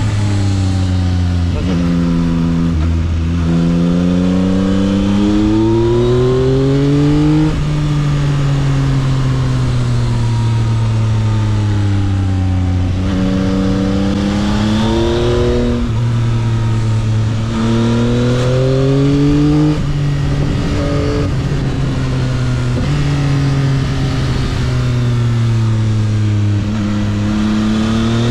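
The 2022 Yamaha XSR900's 890 cc inline three-cylinder engine on its stock exhaust, heard from the rider's helmet with wind rush, revving up and down through a string of bends. The pitch climbs under throttle and then drops, a few times sharply, as it rolls off.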